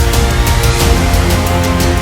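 Loud, driving background music with a heavy, dense low end, sustained chords and a steady percussive beat.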